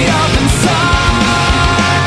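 Loud heavy rock music with a fast, steady drum beat.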